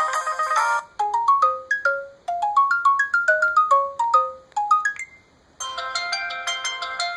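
LG Optimus L9 stock ringtones playing in turn. A dense chiming ringtone ends under a second in. Then a ringtone plays a melody of single short bell-like notes that stops about five seconds in. After a brief pause another busy chiming ringtone begins.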